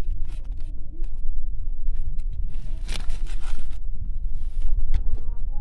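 Newborn puppies suckling at their mother dog's teats: faint squeaks and small smacking clicks over a steady low rumble. There is a burst of hiss about three seconds in, and a short rising whimper near the end.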